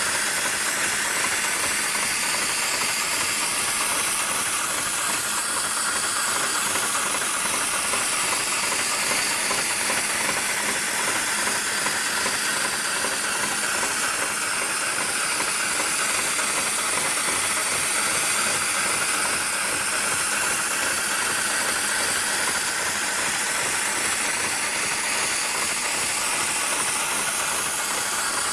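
Steady, unbroken hiss of air, strongest in the high range, with no distinct stitching strokes.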